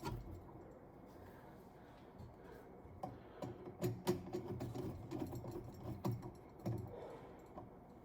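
Faint scattered clicks and light knocks of hands handling parts and tools, with a soft low murmur for a few seconds in the middle.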